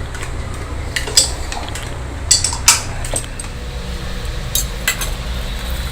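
Kitchen utensils clinking against dishes, about six sharp clinks in a few seconds, over a low steady hum.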